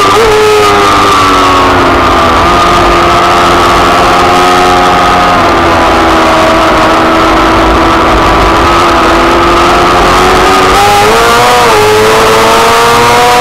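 Onboard sound of an F2 racing sidecar's 600cc four-stroke engine running hard at high revs, very loud and close. The pitch dips just after the start and sags for a few seconds, then climbs steadily, with a short wobble in pitch about eleven seconds in.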